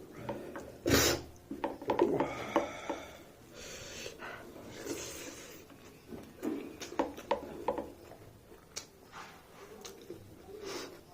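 Eating sounds: food being scraped and stirred on a plate, with small clicks and knocks, then some chewing.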